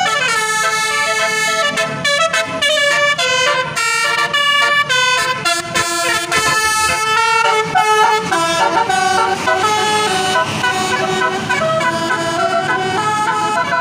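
A tour bus's Basuri telolet horn playing a tune: a loud, unbroken string of horn notes stepping from one pitch to the next.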